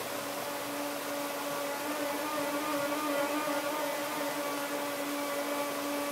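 A saxophone holding one long, steady note over the steady rush of stream rapids.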